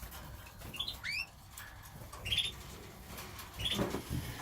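Caged canaries giving a few short, separate chirps that rise in pitch.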